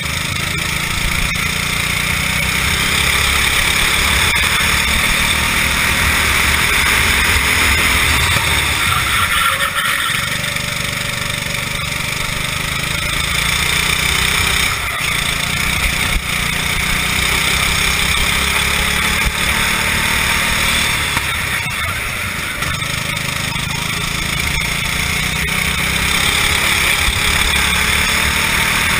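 Racing kart engine at full race pace, heard from a camera mounted on the kart, its note falling off briefly about three times for corners and climbing back up again.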